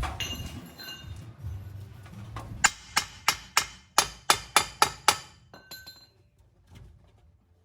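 Hammer striking metal during a repair: about eight sharp, ringing blows in quick succession, roughly three a second, after a low hum in the first couple of seconds.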